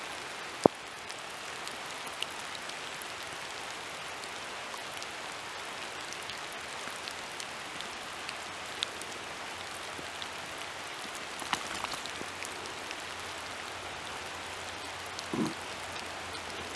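Steady rain falling, with scattered drops ticking close by. A single sharp click just under a second in, and a brief low sound shortly before the end.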